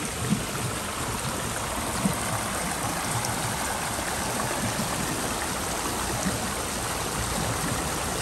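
Steady rushing of running water, an even noise with no pauses or change in level.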